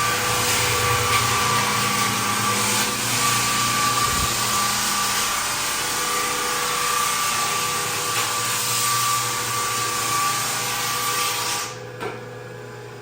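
Drum floor sander with a built-in dust vacuum running steadily as it sands a wooden floor. Near the end the sanding noise drops away, leaving the lower hum of the machine.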